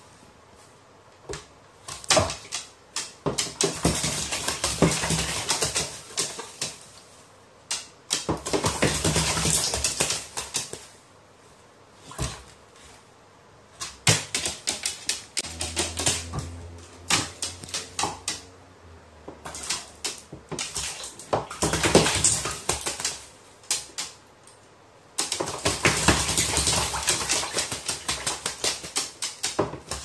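A crow bathing in a plastic basin of water: repeated bouts of splashing and wing-flapping in the water, several seconds each, with quieter pauses between. About halfway through, a low steady hum sounds for a few seconds.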